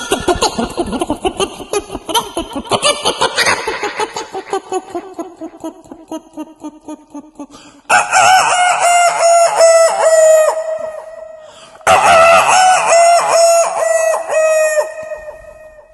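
A man imitating a chicken and rooster with his voice: a fast run of clucks that slows and drops in pitch, then two long, loud cock-a-doodle-doo crows starting about eight and twelve seconds in.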